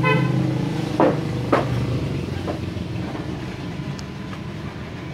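An engine running steadily, with two sharp knocks about a second in, half a second apart.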